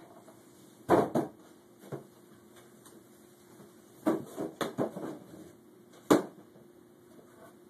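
Cardboard box knocking and scraping against a door and doorframe as a toddler pushes it through: sharp dull knocks, a pair about a second in, a cluster around four to five seconds in, and a single one just after six seconds.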